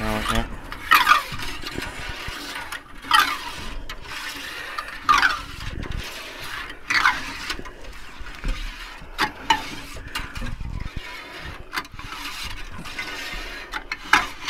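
Glass-removal cutting wire being sawn back and forth through the bonding sealant of a van window, each pull giving a scraping screech that falls in pitch, roughly every two seconds, with a few light knocks between strokes.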